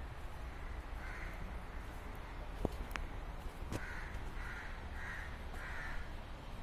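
A crow cawing: one caw about a second in, then four in quick succession near the end, over a low steady rumble and a few sharp clicks.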